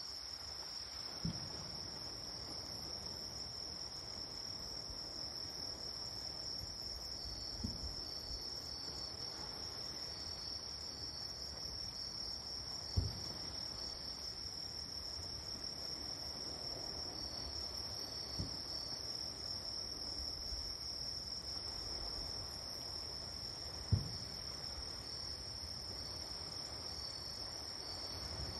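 Distant fireworks bursting as five low, dull booms about five or six seconds apart, the third and fifth the loudest, over a steady high-pitched trilling of night insects.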